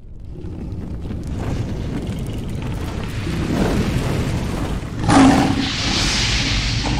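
Cinematic logo-intro sound effect: a low rumble building up, then a boom about five seconds in, trailed by a hissing rush.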